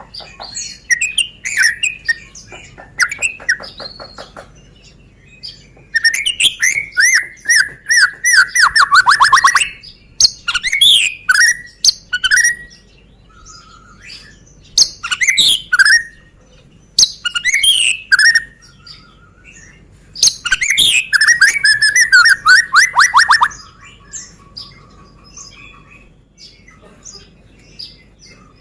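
A Medan white-rumped shama (murai batu) singing loud, varied whistled phrases. Twice, about 6 seconds in and again about 21 seconds in, it delivers a long, fast run of repeated notes that slides down in pitch for several seconds, with quieter pauses between phrases.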